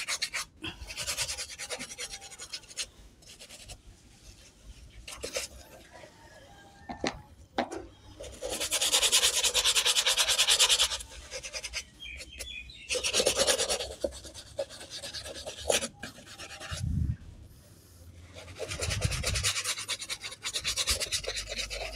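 A brush scrubbing the soapy canvas upper of a sneaker in quick back-and-forth strokes. It comes in spells of a few seconds, louder three times, with softer scrubbing in between.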